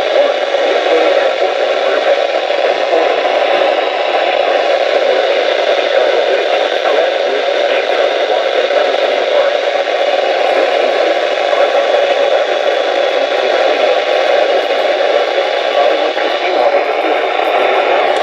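Weather radio receiver putting out steady static hiss through its small speaker, with no clear voice coming through.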